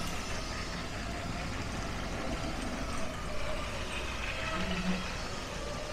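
Steady low rumble of indoor background noise, like building ventilation, with faint distant voices in the background.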